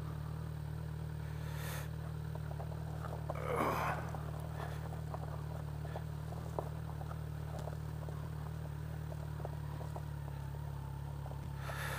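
Kawasaki Ninja 1000's inline-four engine running at a steady engine speed. Scattered faint clicks and a brief rushing swell come about three and a half seconds in.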